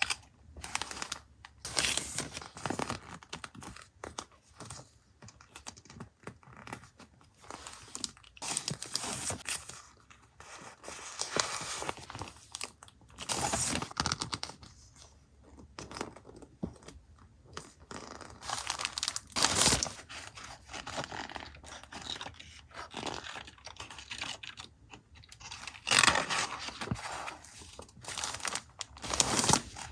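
Paper and stationery wrapping being handled close up: irregular crinkling, rustling and tearing, with light taps and clicks between.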